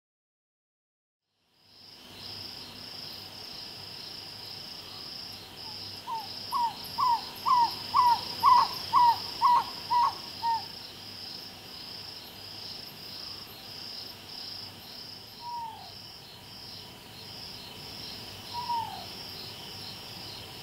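African barred owlet calling: a run of about a dozen quick hooting notes, two or three a second, swelling and then fading, followed later by a few single falling notes. Night insects chirr steadily and high-pitched throughout, after a silent first two seconds.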